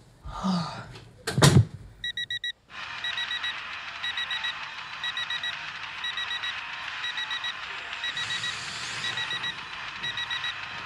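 A bedroom door is pulled shut with a thud about a second and a half in. Then an alarm clock starts beeping: quick repeating bursts of short, high beeps.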